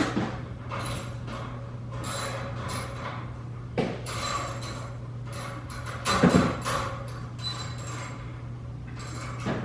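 Irregular knocks, clicks and rattles of objects being handled, loudest about four and six seconds in, over a steady low hum.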